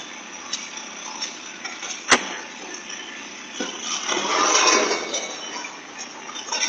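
Road noise inside a moving car's cabin, with one sharp knock about two seconds in and a swell of noise a little past the middle.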